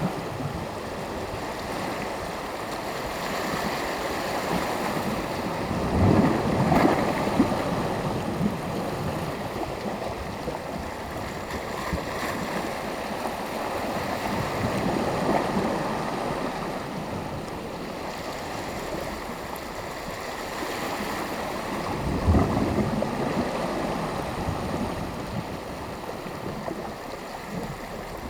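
Small sea waves washing onto the shore in a continuous wash of surf, with louder breaks about six seconds in and again about twenty-two seconds in.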